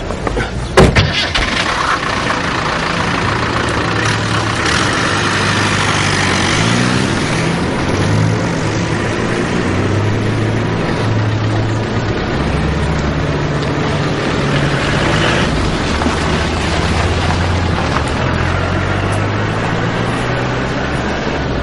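A sharp knock about a second in, then a pickup truck's engine starting and running, its pitch rising and falling, over steady street noise.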